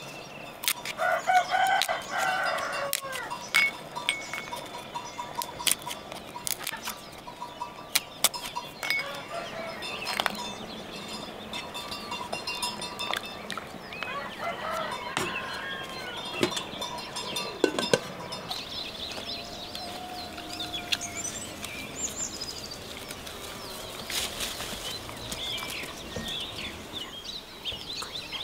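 A rooster crowing and chickens clucking, with scattered sharp clicks and knocks.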